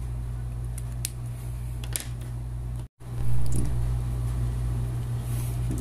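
A steady low hum with a couple of light clicks. About three seconds in, the sound drops out completely for a moment, then the hum comes back a little louder.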